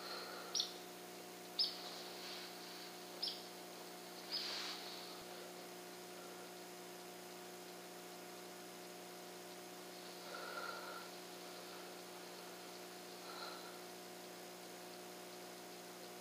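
Small songbird chirping: short high chirps about a second apart in the first few seconds, then two fainter calls later, over a steady faint electrical hum.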